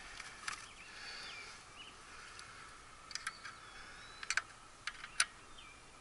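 Light, sharp clicks of multimeter test leads being handled, a handful of them, the sharpest near the end, over a quiet outdoor background with faint bird chirps.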